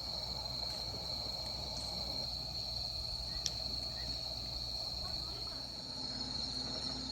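Crickets singing a continuous, high, steady trill, with one sharp click about three and a half seconds in.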